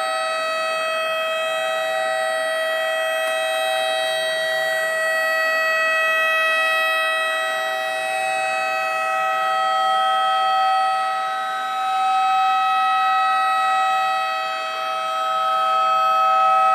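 Homemade electronic mini tornado siren, a 555-timer tone generator played through an amplifier, sounding a steady tone held at one pitch. Its loudness swells and fades every few seconds as the rotator turns it.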